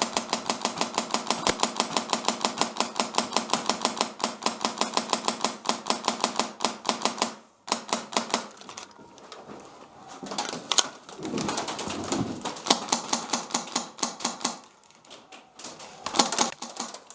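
Airsoft rifle firing on full auto: a fast, even string of shots for about seven and a half seconds, then a pause and several shorter, irregular bursts.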